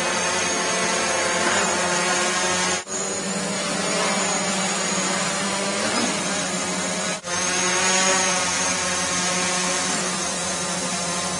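Quadrotor's electric motors and propellers buzzing steadily in a hover, an even whine of several tones over a rushing hiss, dropping out briefly twice, about three and seven seconds in.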